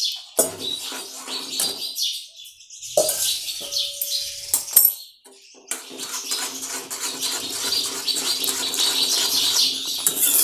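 Jaggery water hitting hot wheat flour roasted in ghee in a kadai, sizzling and bubbling hard, with a steel spoon stirring and scraping against the pan. The sizzle eases briefly twice before settling into a steady bubbling hiss.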